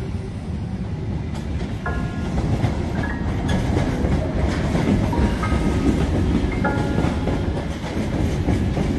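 SNCB passenger train with double-deck coaches passing close alongside a platform, its wheels rumbling steadily over the rails and growing a little louder a couple of seconds in.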